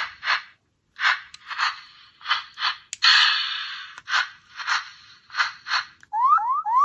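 Hurricane Gyro toy morpher being worked by hand to activate its voice line: a string of short swishing sounds, about two a second, with a longer one about three seconds in. Near the end the toy starts a repeated rising electronic siren-like sound effect.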